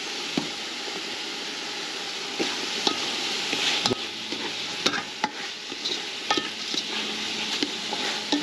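Diced carrots and a sofrito of onion, celery, garlic and chili sizzling in an aluminium pot. From about two and a half seconds in, a spoon stirs and scrapes the vegetables, knocking against the pot in sharp clicks.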